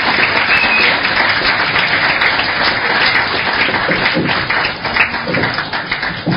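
Audience applauding steadily, a dense wash of many hands clapping.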